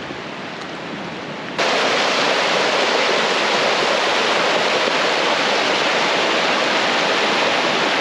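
A waterfall in flood, the Uracher Wasserfall running high after heavy rain and snow. A fainter rush of water jumps abruptly, about one and a half seconds in, to the loud, steady roar of the falls close by.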